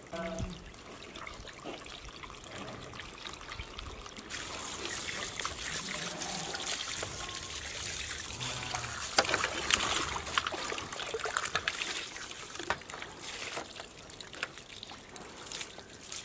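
Water from a garden hose running and splashing over a cow's head and hooves in a metal tray, trickling off into the tray. The spray gets louder about four seconds in, with the sharpest splatters around nine to ten seconds.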